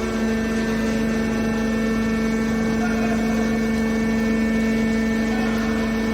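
Hydraulic scrap metal baler's motor and pump running with a steady hum at one low pitch.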